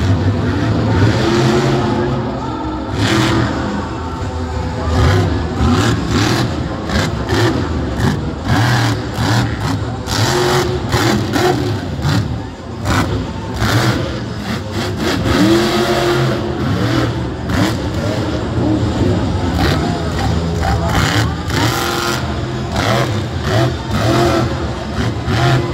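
Monster truck's supercharged V8 engine revving hard again and again, its pitch rising and falling.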